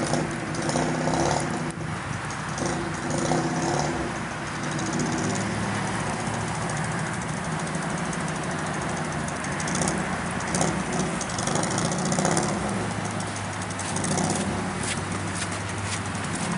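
Vehicle engine running steadily, with a low hum under a constant rushing noise.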